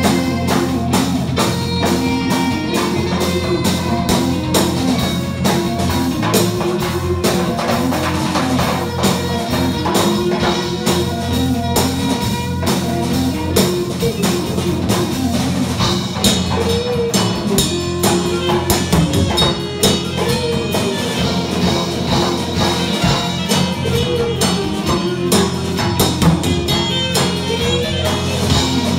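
Live band playing loud amplified music: electric guitar over drums, with a steady beat.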